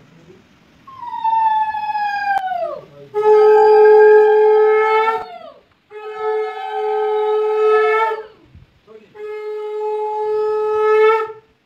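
Conch shell (shankha) blown in four blasts, sounded for the blessing. The first blast slides down in pitch; then come three long, steady blasts on one note, each dropping at its end, and the second is the loudest.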